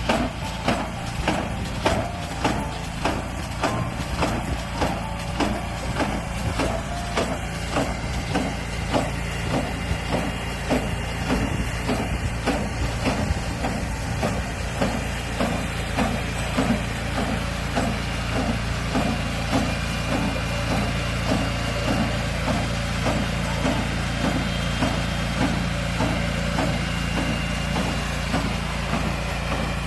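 Cranberry harvesting machinery running steadily with an engine hum and a regular mechanical knocking, about two knocks a second at first and quicker later on.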